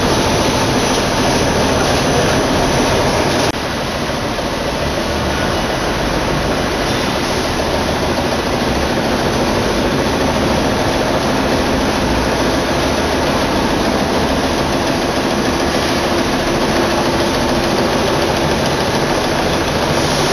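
Rockwool sandwich panel production line running, with a steady, dense mechanical noise from its machinery and rollers as steel sheet feeds through. The noise dips slightly about three and a half seconds in.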